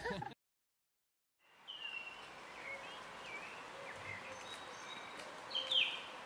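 Birds chirping and calling over a steady faint outdoor hush, which fades in after about a second of silence; a louder cluster of calls comes near the end.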